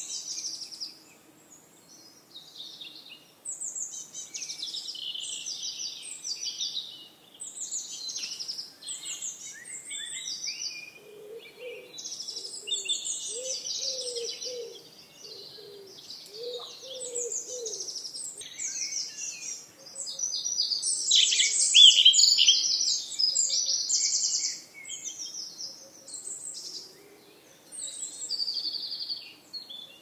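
Several songbirds singing and chirping in a forest, short high phrases overlapping one another, busiest and loudest about two-thirds of the way through. Lower-pitched notes repeat for several seconds in the middle.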